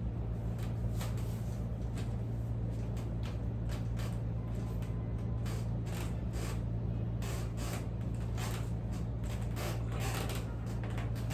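Repeated, irregular rubbing and brushing strokes of hands massaging a person's back, over a steady low hum.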